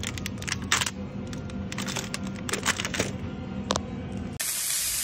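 Plastic packaging of frozen food crinkling and rustling in handling: irregular crackles over a steady hum. About four seconds in it gives way abruptly to meat sizzling on an electric hot plate.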